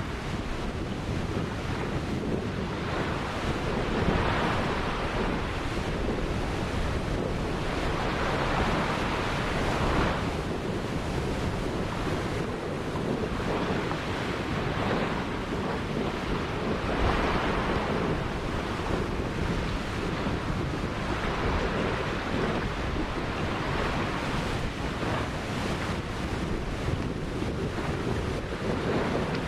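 Ocean surf: waves breaking and washing up the beach in steady, overlapping swells every few seconds. Wind buffets the microphone throughout.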